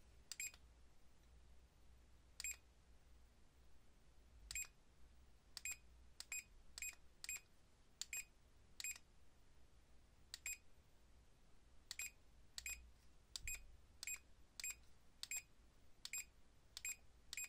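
Green-line 4D laser level giving short, high single beeps at irregular gaps, about twenty of them, as its laser lines are switched on one after another.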